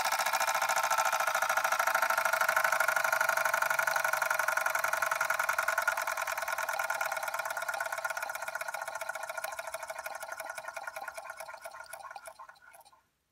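SteamCo STC-01 model steam engine's single cylinder running with a rapid, even chuff of exhaust steam. The beat fades and slows near the end as the engine runs down.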